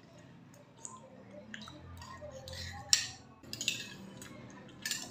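Metal spoons clinking and scraping against a ceramic bowl and mug while eating, with a few sharp clinks about three seconds in and again near the end.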